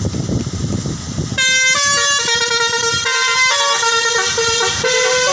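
A bus's Basuri 'telolet' multi-tone horn, starting about a second and a half in and playing a quick melody of changing notes. Before it, a low rumble.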